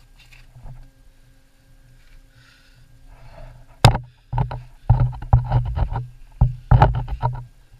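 Knocks, scrapes and crunches of someone clambering over the rocky floor of a lava-tube cave. A sharp knock comes about halfway in, then quick clusters of scrapes and knocks follow.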